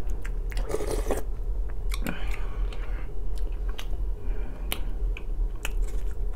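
Close-miked chewing of a mouthful of borscht and black bread, with scattered sharp mouth clicks and smacks.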